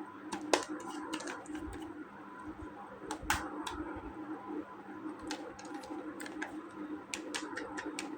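Scattered light clicks and taps of plastic toy pieces being handled, the sharpest about half a second in and again just after three seconds, with a quick run of clicks near the end, over a steady low hum.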